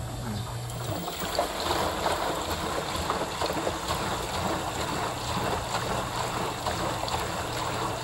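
Panasonic front-load washing machine running: water rushing and splashing in the tub over a low, steady hum that drops out briefly about a second in.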